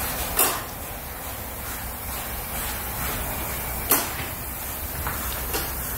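A steady low hum from the shop, with two sharp clacks, one just under half a second in and one about four seconds in, and two fainter knocks near the end.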